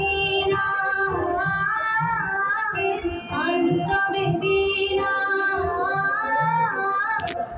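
Music: a song with a woman singing the melody over a low, pulsing accompaniment.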